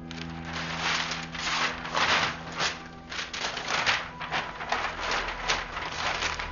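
A frantic run of rough tearing, rustling and clattering noises, with no steady rhythm, as papers are ripped and a telephone answering machine and other things are flung to the floor.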